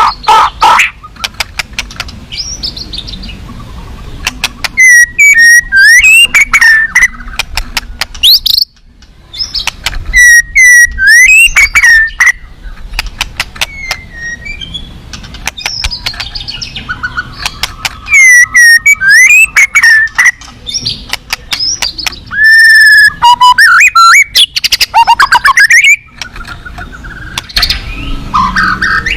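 White-rumped shama (murai batu) singing loudly in phrases of fast whistles, slurred notes and rapid ticking trills, with short pauses every few seconds. It is a rich, varied song full of mimicked calls.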